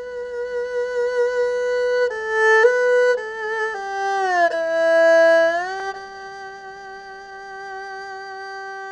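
Music: a solo bowed string instrument plays a slow melody with sliding notes, then settles on one long held note for the last few seconds.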